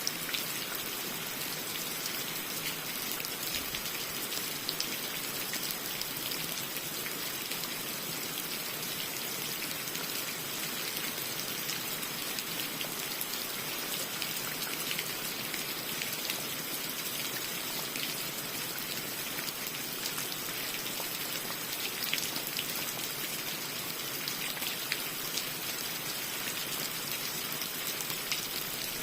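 Steady rain falling, a constant hiss of countless small drop impacts.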